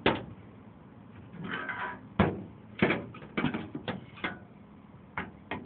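Car headlight bucket parts being handled and knocked together, a string of about ten sharp, uneven knocks and clicks, bunched together in the middle, with a faint rustle shortly before them.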